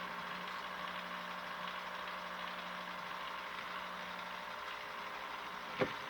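Pampered Chef electric ice cream maker's motor running steadily, churning the mix in its pre-frozen bowl, with a single sharp knock near the end.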